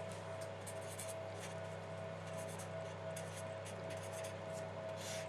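Faint scratching strokes of someone writing, over a steady low electrical hum.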